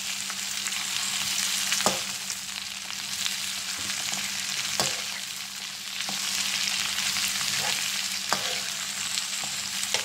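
Sliced okra and onions sizzling as they fry in oil in a metal pan, stirred with a metal spoon that scrapes and knocks against the pan every second or two.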